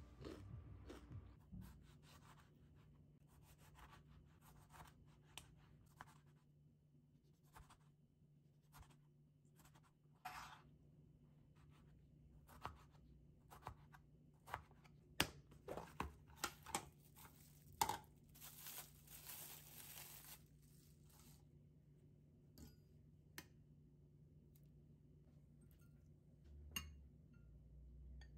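Kitchen knife dicing a tomato on a plastic cutting board: scattered sharp taps of the blade on the board, thickest and loudest about halfway through, followed by a short rustling hiss.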